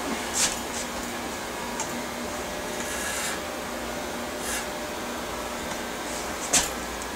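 Electric hair clippers running with a steady hum while fading the sides of a short haircut. A few short, sharp hissing rasps come as the blade goes through hair, the loudest near the end.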